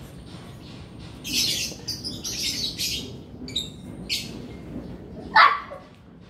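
Short high chirps and squeaks from animals, several in the first four seconds, then one loud squeal about five seconds in that falls sharply in pitch.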